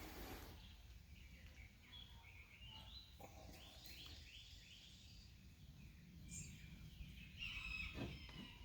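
Near silence, with faint birds chirping in the background and a soft knock near the end.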